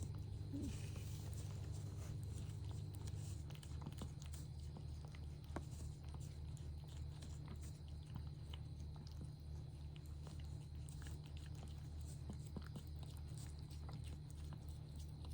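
A mother cat chewing and licking during the birth of her kittens: faint small clicks scattered over a low, evenly pulsing sound.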